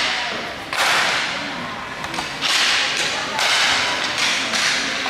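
Inline hockey sticks striking the puck on a hard sports-hall floor: about four sharp cracks, each ringing on in the hall's echo.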